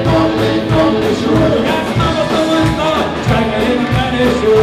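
Live rock band playing an upbeat dance tune, with a steady drum beat under a guitar-led melody.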